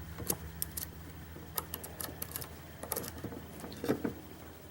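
Scattered light metallic clicks and taps as a Mul-T-Lock Interactive lock cylinder and picking tools are handled, with a couple of slightly heavier knocks near the end.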